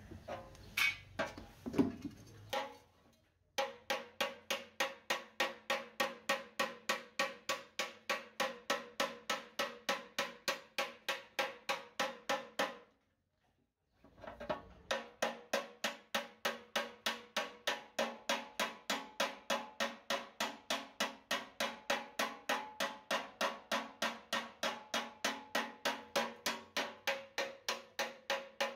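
Rapid, very even strikes, about three to four a second, with a ringing tone under them; they break off abruptly for about a second midway, then resume at the same pace.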